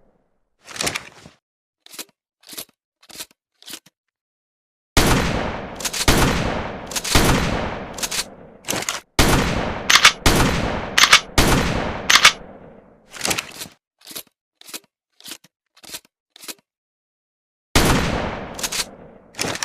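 Pump-action shotgun: the slide racked with short, sharp clacks a few times, then a run of loud shots about a second apart, each with a long decaying tail, with more racking clacks between and after them and one last shot near the end.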